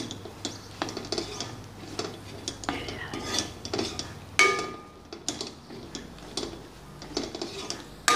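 Metal spoon stirring and scraping a thick spice masala in a metal kadai, with repeated scrapes and knocks on the pan as the ground spices are roasted. About four seconds in, the spoon strikes the pan with a louder ringing clang.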